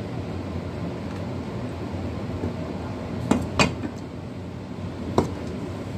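Cleaver cutting through a sea cucumber onto a thick wooden chopping block: three sharp knocks, two close together about halfway through and one more near the end, over a steady low background hum.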